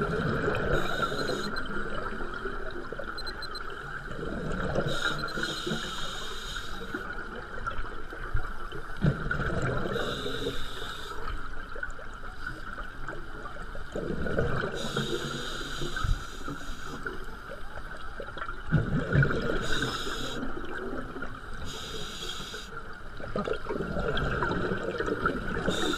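A scuba diver breathing through a regulator, heard underwater through a camera's waterproof housing: a hiss on each inhale alternating with a burst of bubbling on each exhale, about every four to five seconds. A steady tone runs underneath.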